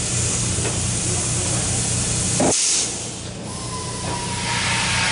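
Hand-held pneumatic drill running: a loud hiss of air that cuts out abruptly about two and a half seconds in, then builds again with a thin steady whine.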